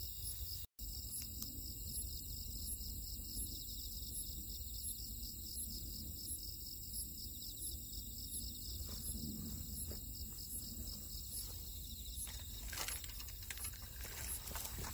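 Crickets chirping steadily in a night-time insect chorus, a high trill with regular pulses about one to two a second over a low background hiss. A few soft clicks come near the end.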